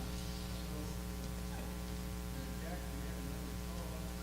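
Steady electrical mains hum with a buzz of evenly spaced overtones, unchanging throughout.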